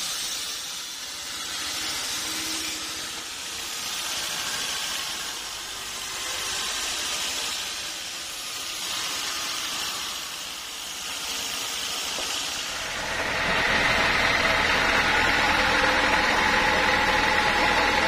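Band sawmill at work: a hissing saw noise that swells and fades every few seconds, then, about thirteen seconds in, a louder steady machine running with a held whine over a low hum.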